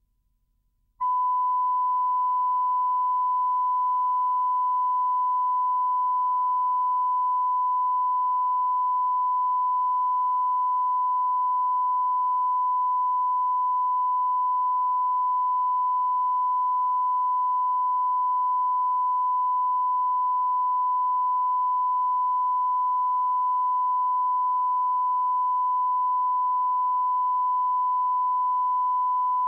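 Steady 1 kHz reference tone, the line-up tone recorded with colour bars at the head of a broadcast videotape. It starts about a second in and holds at one pitch and level without a break.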